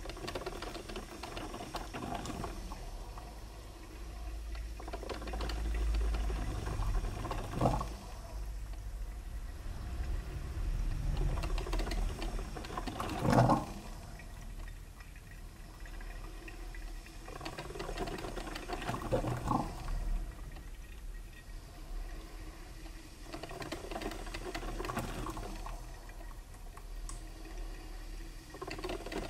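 Coffee maker brewing: water gurgling and bubbling through the machine over a low hum, with a louder gurgling spurt about every six seconds.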